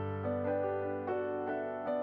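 Background piano music, a new note or chord about every half second.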